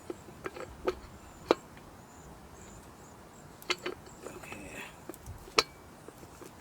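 Hammer tapping the new U-joint's bearing caps into the driveshaft yoke of a 1998 Toyota Tacoma: several sharp taps, irregularly spaced, with the loudest about a second and a half in and near the end.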